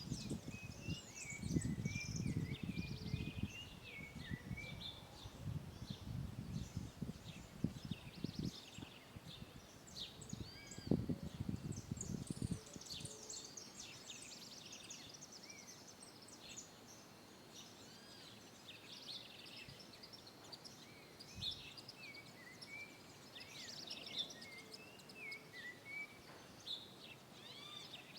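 Several birds chirping and twittering at once, many short whistled calls overlapping throughout. A gusty low rumble sits under them for roughly the first half, then dies away.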